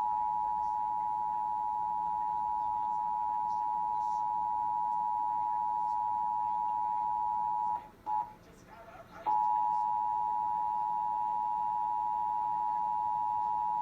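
Emergency Alert System attention signal: the steady two-tone 853 and 960 Hz alarm tone of a monthly test. It cuts out about 8 seconds in, blips once, and resumes about a second and a half later.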